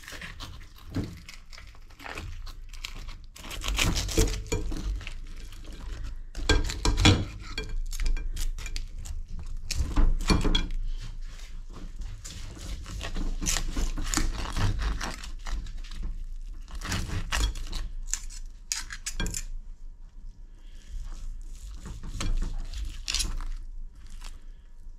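Knife and fork carving a whole roast chicken on a china plate: irregular scrapes and clinks of the cutlery against the plate, with the meat tearing as it is pulled off the bone.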